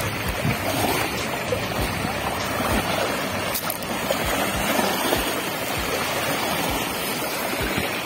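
Wind buffeting the microphone in frequent low thumps, over a steady rush of choppy river water lapping.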